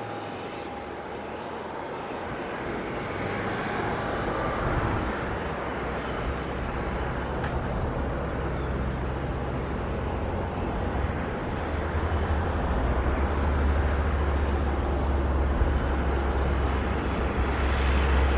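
Airbus A330neo airliner on approach, its two Rolls-Royce Trent 7000 turbofans giving a steady jet rumble and hiss that grows louder as the aircraft comes closer.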